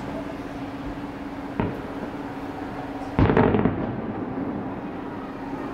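Aerial firework shells bursting: a lighter bang about a second and a half in, then a much louder boom about three seconds in that rumbles on for most of a second.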